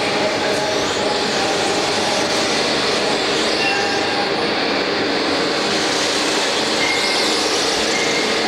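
Steady loud mechanical rumble and hiss, with a few faint brief squeals in the middle and near the end.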